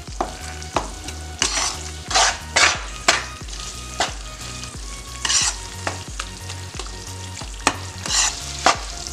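A slotted spatula stirring and scraping roasted wheat flour, dry fruits and ghee around a black kadhai, in irregular strokes about once or twice a second. The hot ghee keeps sizzling faintly even though the flame is off.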